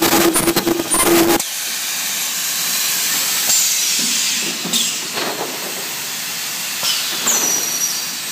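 Ultrasonic welding machine for flat-plate solar absorbers running. A loud rattling buzz over a steady hum cuts off abruptly about a second and a half in, leaving a steady hiss with a couple of faint high whistles.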